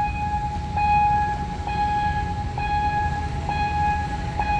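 Railway level-crossing warning bell dinging steadily, about one ding a second, signalling that a train is approaching with the barriers down. A low rumble of road traffic lies underneath.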